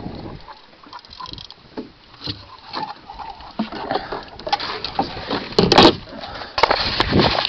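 Handling noise aboard a small fishing boat: scattered clicks, knocks and rustles as the camera is moved about and gear is touched, with a loud clatter about six seconds in.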